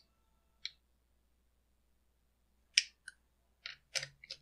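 Several short, separate clicks and knocks of metal tools being handled: a socket and a cordless impact driver are fitted onto the chainsaw's clutch, with the clicks coming closer together in the last second or so.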